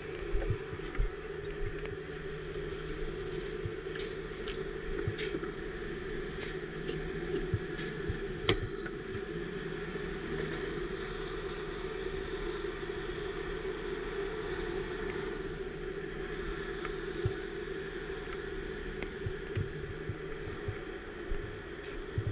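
Heavy rotator tow truck's diesel engine running steadily while its boom is worked, with a few light clicks.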